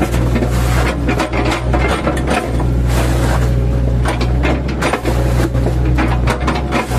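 Mini excavator engine running steadily under load, with repeated irregular cracks and crunches of oil palm trunk wood being chopped apart by the machine.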